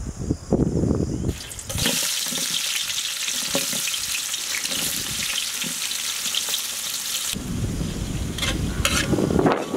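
Sliced onions sizzling in hot oil in a large cooking pot, the hiss starting about two seconds in. Near the end the sizzle gives way to a lower rumble with a few sharp scrapes as a ladle stirs the pot.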